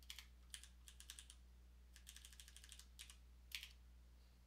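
Faint keystrokes on a computer keyboard: scattered single presses, then a quick run of about eight presses around two seconds in, then a few more.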